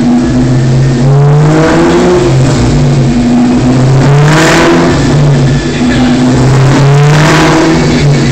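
A 2003 SVT Cobra's supercharged 4.6-litre V8 runs loud and steady on the dyno after its pull. The revs rise briefly three times, about a second in, in the middle and near the end.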